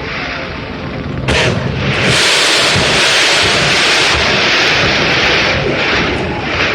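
Fireworks going off: a sharp bang about a second in, then a few seconds of dense, continuous bursts that ease off near the end.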